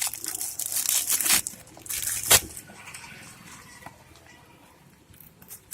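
Parcel packaging being torn open and crinkled by hand, with a sharp rip about two seconds in, then quieter handling.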